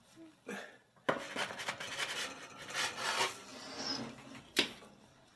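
Wooden pizza peel scraping and knocking against the oven rack and steel baking plate as a pizza is slid off it into the oven, then a sharp knock near the end.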